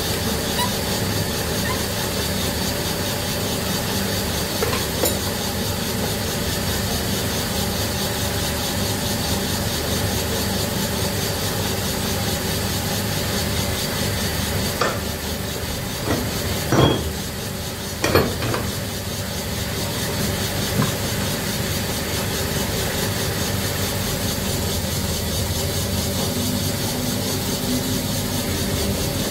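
Steady hum of a workshop machine's electric motor running, with a few sharp knocks near the middle.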